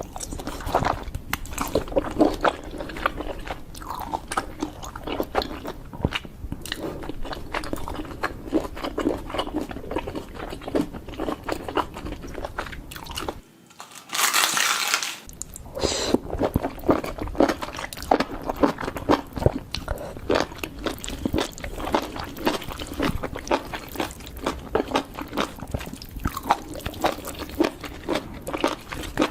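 Crunchy sweets being bitten and chewed, a dense, irregular run of crunches. About halfway through the crunching breaks off for a moment under a short hiss.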